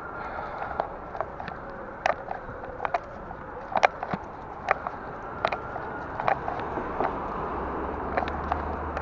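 Bicycle rolling along a brick-paved path: steady tyre and air noise with irregular sharp clicks and rattles from the bike. A low rumble comes in near the end.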